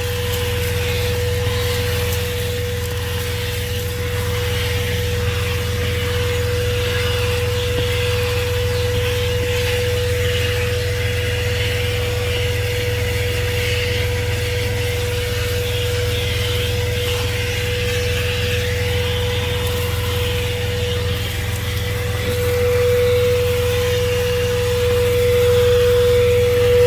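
THISWORX 12-volt handheld car vacuum running with a steady motor whine and rushing suction noise as it is worked over a vehicle interior, getting louder in the last few seconds. Under it is a steady low hum from the vehicle's idling engine.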